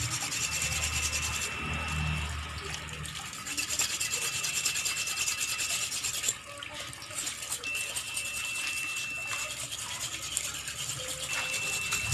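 A knife scraping a fish in quick rasping strokes, over tap water pouring steadily into a basin.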